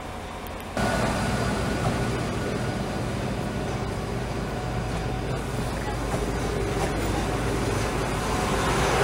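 Diesel regional multiple unit running slowly past at close range: a steady engine hum with wheel and running noise. It starts suddenly about a second in and grows slowly louder.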